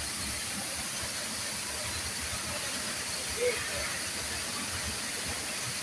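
Waterfall: the steady, even hiss of water falling into a plunge pool.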